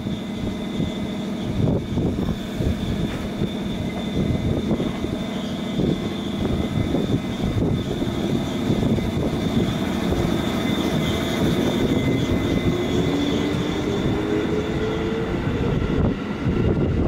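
JR East 211 series electric multiple unit pulling out of a station, with wheels rumbling and knocking on the rails. In the second half a whine rises steadily in pitch as the traction motors and gears gather speed, over a thin steady high tone.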